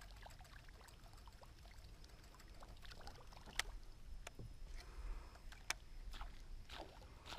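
Faint water lapping and small splashes against a kayak hull, with two sharp clicks about three and a half and five and a half seconds in.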